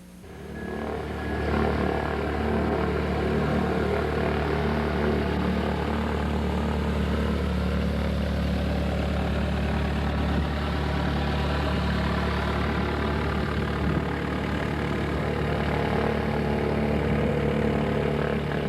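Piston engine of a propeller airplane running steadily, fading in over the first second or two and then holding at an even note.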